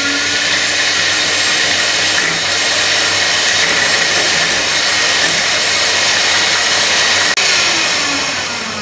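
Handheld electric mixer running steadily, its twin beaters whipping a half-frozen milk ice cream base with fresh cream in a glass bowl. About seven seconds in there is a click, and the motor's whine then falls in pitch and fades as the mixer slows.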